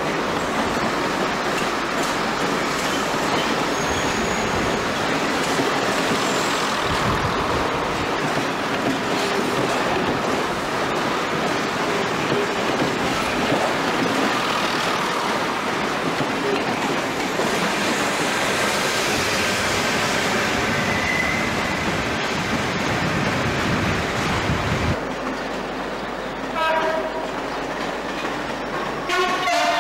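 Diesel passenger trains moving through a covered station: a steady, dense din of engines and wheels on rail. About 25 seconds in it cuts off abruptly to a quieter train sound, with two short pitched sounds near the end.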